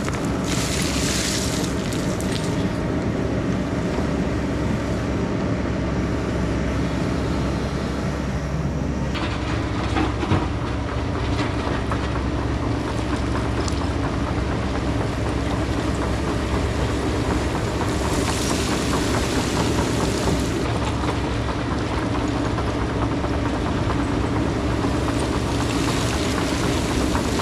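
Takeuchi TB2150 excavator's diesel engine running steadily under working load, with spells of hiss from the machine rising and falling and a single knock about ten seconds in.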